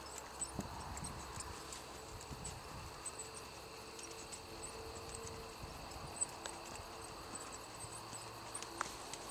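Hoofbeats of a Percheron-Paint gelding trotting on a soft dirt arena: faint, dull thuds.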